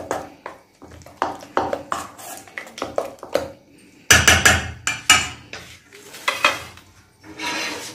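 Steel spoon stirring and scraping a thick besan-and-spice paste in a stainless steel bowl, clinking against the sides in a run of short strokes. A cluster of louder clinks comes a little past halfway, and a short scrape near the end.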